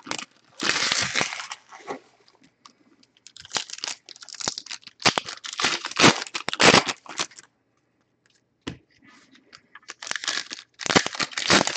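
Foil trading card pack wrappers being torn open and crinkled by hand, in irregular rustling bursts with a short lull about two-thirds of the way in.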